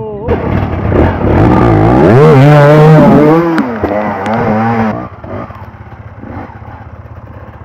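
Enduro dirt bike engine revving hard, its pitch rising and falling as the throttle is worked, then dropping back to a quieter, steadier run about five seconds in.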